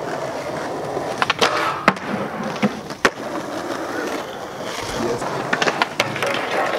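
Skateboard wheels rolling on concrete, with sharp clacks of the board striking the ground about a second and a half in, near two seconds and three seconds, and a quick run of clacks near the end as the board goes up onto a wooden bench.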